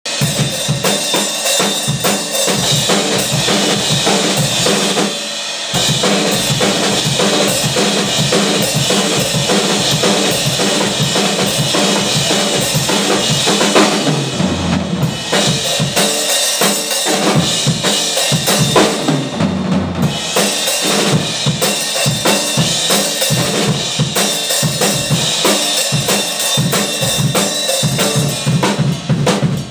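Drum kit played continuously, with steady bass drum and snare hits in a dense, driving pattern.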